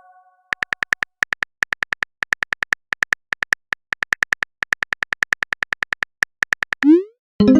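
Phone keyboard typing sound effect: a rapid, uneven run of short, bright clicks, about five or six a second, as a text message is typed out. Near the end, a quick rising swoop.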